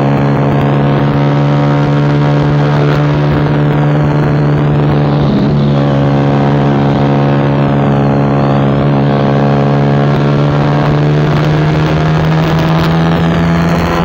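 Suzuki GSX-R150's single-cylinder engine running steadily at cruising speed through a loud aftermarket racing exhaust, with a brief break in the note about five seconds in.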